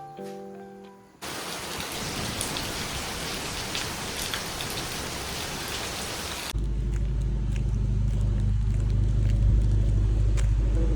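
Rain falling steadily, an even hiss with scattered drops, for about five seconds after the last notes of soft keyboard music. It then cuts abruptly to a louder, steady low engine hum of a vehicle.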